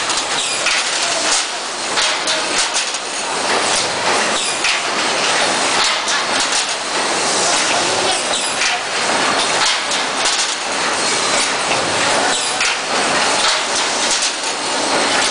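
Automatic copper tube straightening and cutting machine running, a continuous metallic clatter with frequent sharp clicks as cut copper tube pieces drop down sheet-metal chutes into metal trays.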